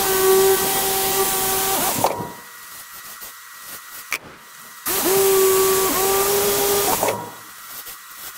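Corded electric carving knife running as it cuts through foam: a steady motor hum that runs for about two seconds, stops, starts again about five seconds in for another two seconds, then stops. The pitch dips briefly a couple of times.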